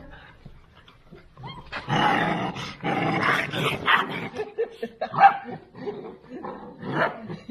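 A litter of two-month-old Central Asian Shepherd puppies barking, yipping and growling as they play. The loudest part is a dense stretch of overlapping barks and growls from about two to four seconds in, followed by a few single yips.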